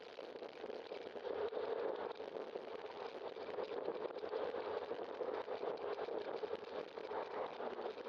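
Steady rolling noise of a bicycle moving along a wet street, its tyres on wet asphalt.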